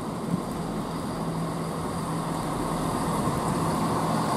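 ScotRail Class 170 Turbostar diesel multiple unit moving through the station, its underfloor diesel engines running with a steady low hum and a rising rush of engine and wheel noise, growing louder toward the end.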